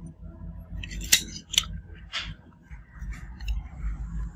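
Plastic phone parts being handled. Two sharp clicks come about a second in, then a short scrape and a few light taps, over a steady low hum.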